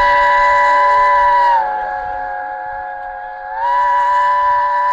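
Steam locomotive Oliver Cromwell's whistle sounding one long blast of several tones at once. It sags lower and quieter about a second and a half in, comes back up to full pitch about two seconds later, and cuts off sharply.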